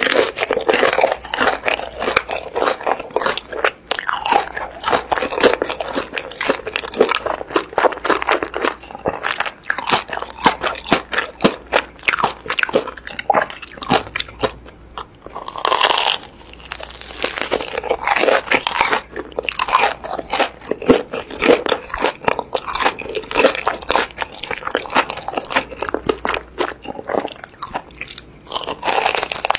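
Close-miked crunching and chewing of a breaded Korean corn dog's crisp coating, a dense run of crunchy bites with a few short pauses.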